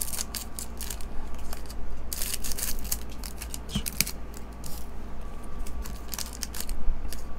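Scissors snipping open foil-wrapped Topps Star Wars trading card packs, with the wrappers crinkling as they are handled: a run of irregular crinkles and clicks.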